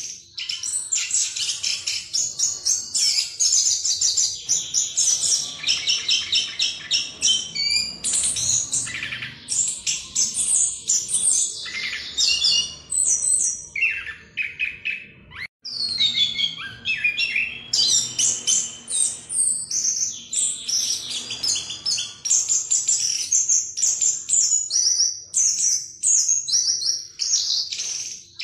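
Chestnut-capped thrush (anis kembang) singing a fast, unbroken rolling song ('ngerol') of rapid high notes, with one short pause about halfway through.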